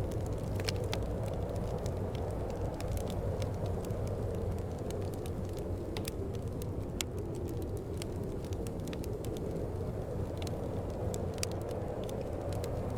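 Wood fire crackling with irregular sharp pops and snaps over a steady rush of wind.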